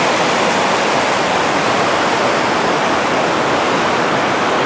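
Mountain river rushing over a rocky bed, a steady loud sound of running water.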